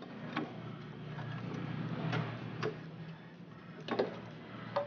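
A few light plastic clicks and taps, the loudest about four seconds in, as an angel-eye halo ring and headlamp lens are handled and pressed into a BMW E36 headlamp's plastic housing. A low steady hum runs underneath.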